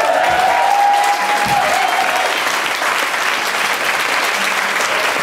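Audience applauding after a swing-dance number ends. One voice in the crowd holds a long cheering whoop over the first two seconds.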